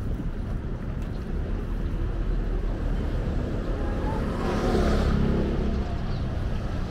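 Street traffic rumble, with a vehicle passing louder about four and a half to five and a half seconds in.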